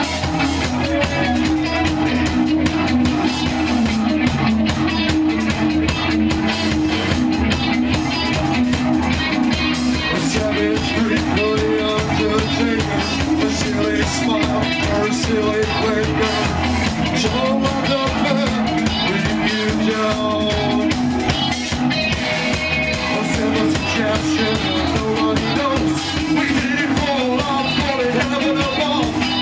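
Rock band playing live: electric guitar, bass guitar and drums, with a man singing into a microphone over them.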